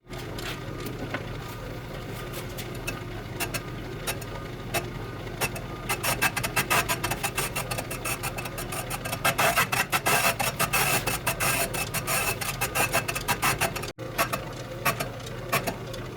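Brake lathe's cutting bit scraping the inside of an old brake drum as it turns. The bit catches only a high spot on each revolution, so the cut comes as a run of scratchy ticks. The ticks thicken and grow louder through the middle, then ease off.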